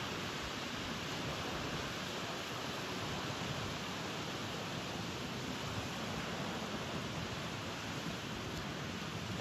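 Ocean surf breaking and washing in, heard as a steady rushing noise; the waves are running somewhat high with typhoon swell.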